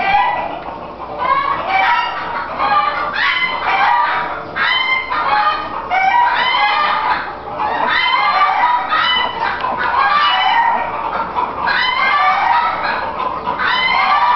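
A litter of newborn puppies squealing and whining while nursing, many short high cries overlapping without a break.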